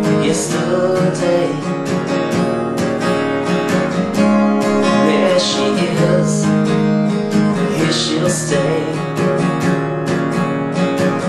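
Acoustic guitar strummed in a steady rhythm through an instrumental passage of a song; a sung word trails off about a second in.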